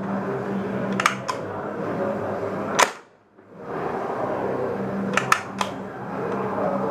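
Arms Revolution KG9 green-gas blowback airsoft gun firing single shots a couple of seconds apart, each a sharp crack, with lighter clicks of the action between them. The gun is being hand-cycled because its air nozzle no longer returns fully, which causes failures to fire. A steady hum runs underneath.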